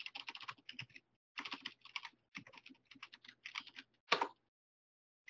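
Typing on a computer keyboard: a quick run of keystrokes for about four seconds, ending with one louder stroke.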